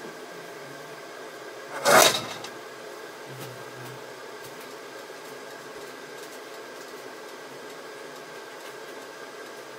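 A frying pan of olive oil and garlic is moved on the stovetop, making one short, loud metallic clatter about two seconds in. A steady kitchen hum runs underneath.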